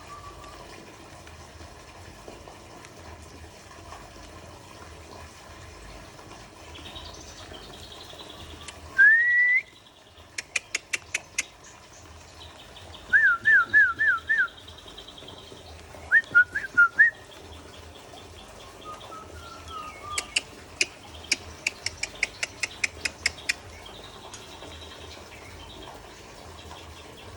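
Caged songbirds singing: a loud rising whistle about nine seconds in, then runs of sharp clicking notes and quick bursts of repeated whistled notes, over a faint high trill in the background.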